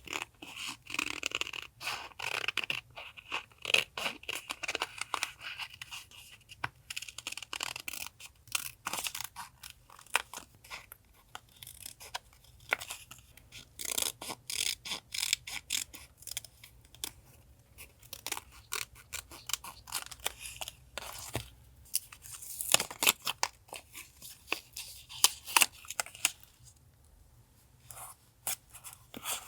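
Paper being handled for a journal collage: many short, crisp rustles and scrapes of paper, with some tearing.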